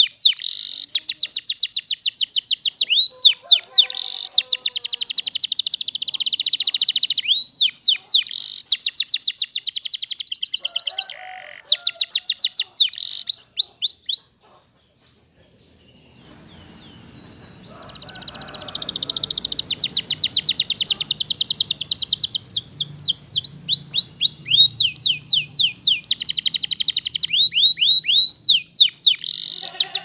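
Canary singing: long trills of rapidly repeated high notes, one run after another, broken by a pause of about three seconds about halfway through.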